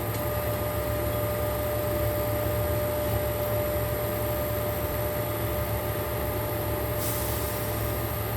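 Steady machine hum with a constant mid-pitched whine running over it, with a short burst of hiss about seven seconds in.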